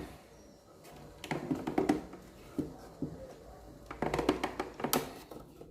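Light taps and knocks of a loudspeaker being handled and fitted back into its wooden cabinet, in a few short clusters, with a sharper knock about five seconds in.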